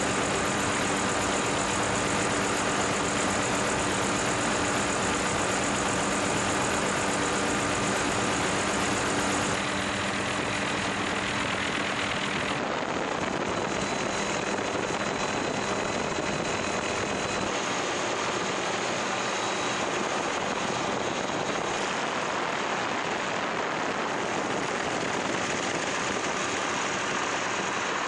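Helicopter cabin noise: a steady drone of rotor and engine with several steady tones over it. The tone pattern shifts a few times, about ten, thirteen and seventeen seconds in.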